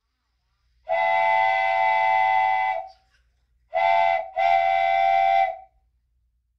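Electronic train-horn sound from a battery-powered toy locomotive: three blasts, a long one of about two seconds, a short one, then another of about a second and a half.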